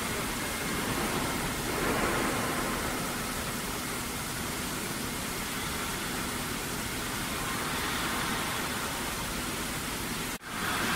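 Steady hiss of factory noise, machinery running, with a faint steady hum through it. It breaks off for a moment near the end.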